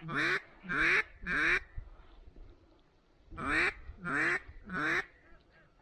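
Loud hen-mallard quacks blown on a duck call to draw in circling mallards: two series of three quacks, the second starting about a second and a half after the first ends.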